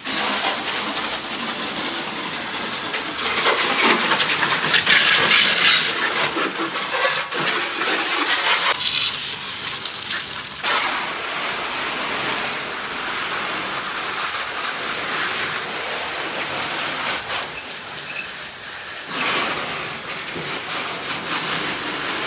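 Garden hose trigger nozzle spraying water onto a car's body, a steady hissing spray that is loudest in the first half and shifts in strength as the jet moves over the panels.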